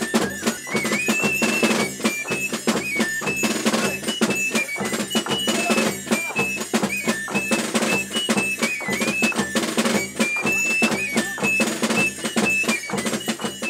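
Binche Carnival street music: a drum beats a fast, steady rhythm under a high melody that steps from note to note.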